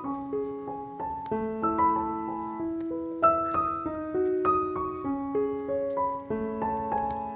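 Background piano music: a gentle melody of single held notes moving at a moderate pace.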